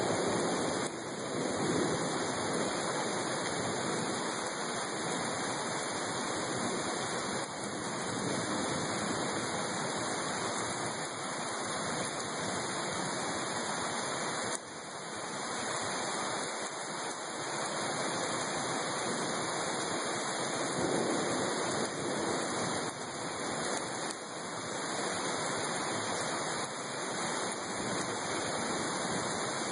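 Heavy rain falling steadily, a constant even hiss of downpour.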